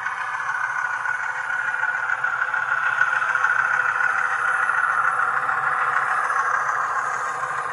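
HO-scale model diesel locomotive and hopper cars rolling along the track, a steady whirring and rattling of motor, gears and wheels that swells as the train comes close and eases off as it passes.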